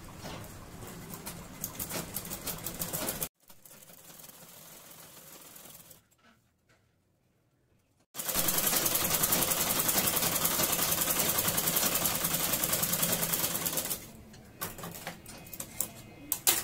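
Sewing machine stitching a seam joining two cotton petticoat panels, its needle mechanism clicking in a quick rhythm. After a short near-silent pause it runs fast and steady for about six seconds, the loudest part. A few sharp clicks come near the end as the thread is snipped with scissors.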